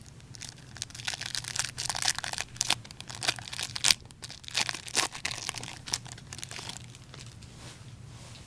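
Plastic wrapper of a hockey trading card pack being torn open and crinkled by hand, a dense run of sharp crackles that dies down about seven seconds in.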